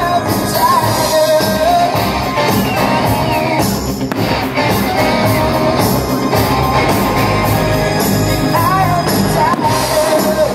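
Rock-style music with a singing voice, loud and steady, with a sharp bang from a firework shell about four seconds in and again near the end.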